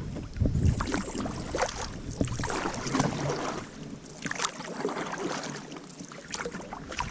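Canoe paddle strokes splashing irregularly, with water gurgling and lapping around the hull. In the first half a low wind rumble on the microphone sits under it.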